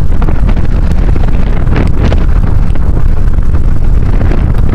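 Strong wind buffeting the microphone: a loud, continuous low rumble with gusty thumps.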